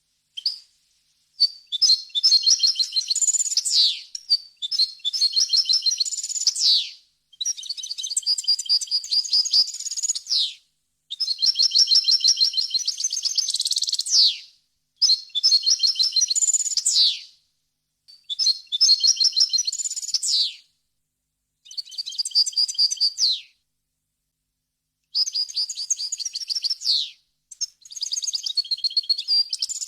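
European goldfinch singing: a run of fast, high twittering song phrases, each two to three seconds long, broken by short silent gaps.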